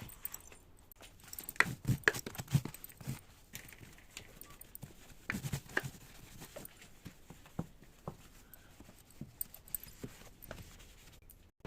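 Irregular knocks, clicks and light rustling of objects being handled and set down while a refrigerator is cleaned out, with a few louder thumps about two seconds in and near the middle.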